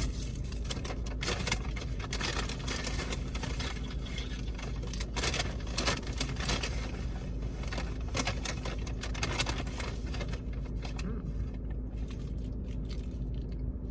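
Rustling and crackling of a paper takeout bag and its contents being handled, in many short irregular strokes that thin out near the end, over a steady low hum.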